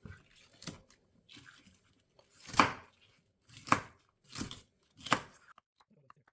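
A knife cutting through a pepper and knocking on the cutting board: about six uneven cuts, the loudest about two and a half seconds in.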